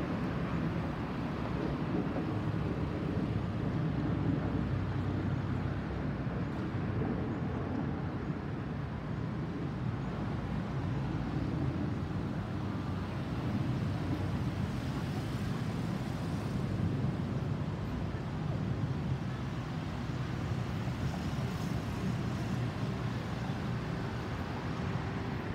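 Boeing 737 MAX 9 airliner's CFM LEAP-1B jet engines heard as a distant, low, steady rumble after the aircraft has passed over.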